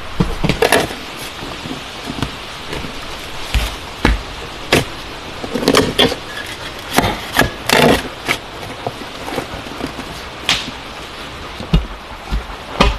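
Irregular knocks and thuds, a dozen or so spread unevenly, over a steady background hiss.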